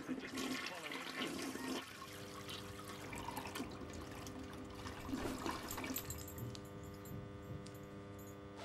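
Sound from a televised football match for a couple of seconds, then water splashing and trickling in a bathroom over a steady hum.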